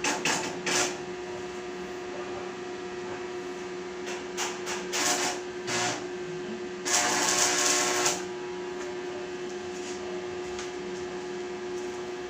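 Steady electric hum from a welding machine, broken by short bursts of harsh crackling noise and one louder burst about a second long near the middle, typical of short arc-welding tacks on steel.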